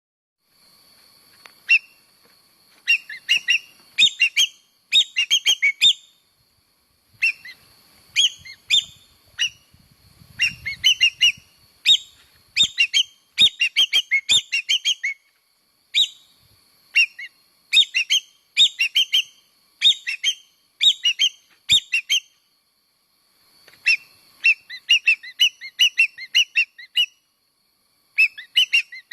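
Common green magpie (Cissa chinensis) calling in bouts of rapid, sharp whistled chirps, several notes a second, broken by pauses of a second or two. A faint steady high-pitched tone runs underneath.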